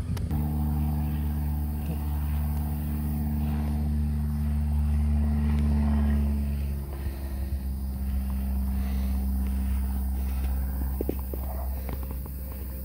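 An engine running steadily, a low hum with several pitched tones that drops in level about seven seconds in.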